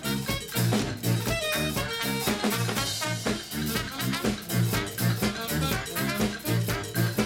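Live brass band playing a tune: saxophones, trumpet and trombone over a sousaphone and drums, with a steady pulsing beat.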